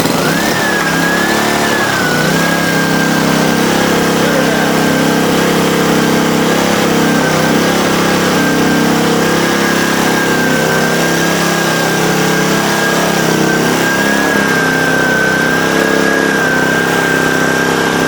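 Honda HRX217 lawnmower's single-cylinder engine catching and running up to speed, settling after a couple of seconds into a steady run with a constant high whine on top. It runs smoothly with no vibration, its bent crankshaft having just been straightened.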